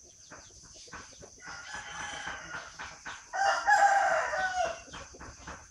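A rooster crowing once, a long call of about a second and a half starting about three seconds in, with fainter chicken sounds before it.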